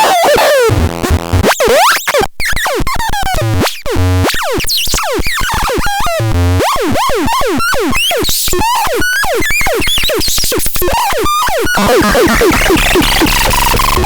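Electronic synthesizer sounds: a dense run of fast chirping pitch sweeps and chopped, stuttering glitches, with a low bass layer joining near the end.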